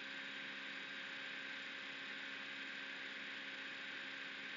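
Steady hiss with a faint electrical hum underneath: the recording's background noise, with nothing else sounding.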